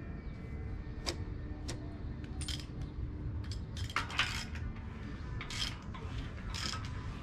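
Light metallic clinks and rattles, a handful scattered over several seconds with the loudest cluster about four seconds in, as tools or small metal engine parts are handled. A steady low rumble runs underneath.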